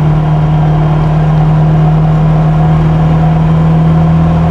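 1973 Opel Manta's four-cylinder engine running steadily at cruise, heard from inside the cabin as a constant low drone over road noise.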